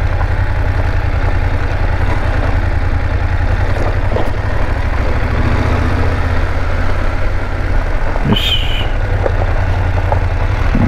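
BMW GS adventure motorcycle engine running steadily at low revs in second gear while riding slowly on a dirt road. A short high-pitched sound comes about eight seconds in.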